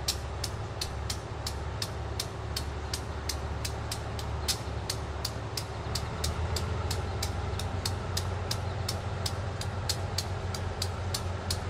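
Small diesel switcher locomotive running, its engine rumble growing louder about six seconds in as it starts to move. Over it the locomotive bell rings steadily, about three strikes a second.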